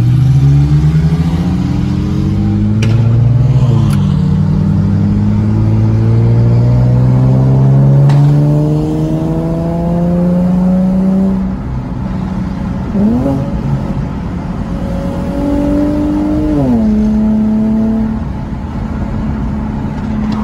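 Infiniti G37x's 3.7-litre V6 accelerating hard, heard from inside the cabin. The engine pitch climbs, drops at a gear change about four seconds in, then climbs again for several more seconds before settling to a steady cruise, with two brief dips in pitch later on.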